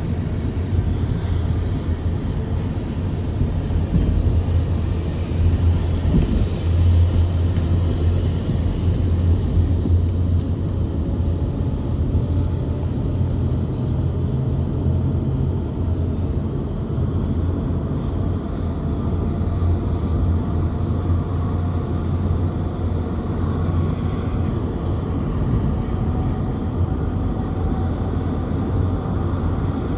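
Steady low road rumble inside a moving car. A faint whine rises slowly in pitch through the second half.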